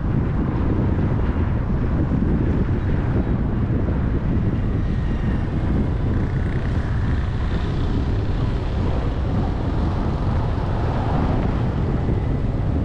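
Steady wind rumble on the microphone of a camera moving through city traffic, with the running of motorbikes and cars underneath.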